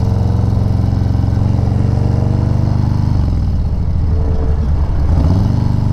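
Motorcycle engine and exhaust running at a steady cruise, heard from the rider's seat. About three seconds in the revs drop as the throttle is rolled off, then climb back up near the end.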